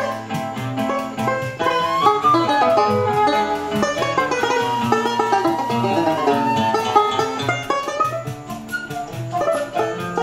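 Live choro played on flute, banjo, acoustic guitar and pandeiro: a quick melody over plucked strings, with one long held note about halfway through.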